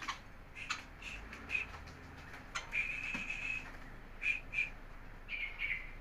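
White-rumped shama calling: a run of short whistled notes, with one longer held whistle about three seconds in.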